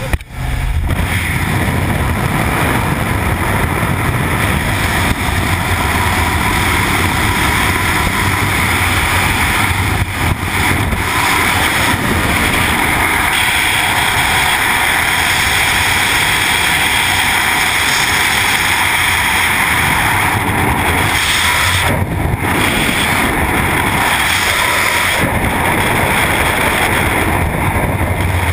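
Loud, steady rush of freefall wind blasting over a helmet camera's microphone during a skydive, jumping up in loudness a moment in as the jumper leaves the aircraft door.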